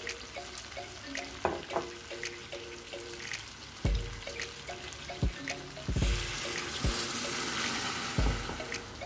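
Water poured from a glass into a stainless steel pot of vegetables, a steady splashing pour lasting about two seconds in the second half, with a few low knocks before and around it.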